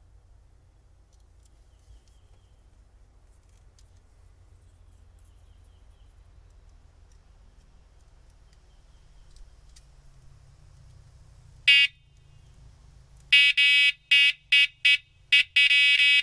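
Old electric boat horn, test-powered from a Milwaukee M12 tool battery, blaring: one short blast about twelve seconds in, then a quick string of short toots and a longer blast near the end, showing the horn still works. Before that, only faint clicks of wires being handled.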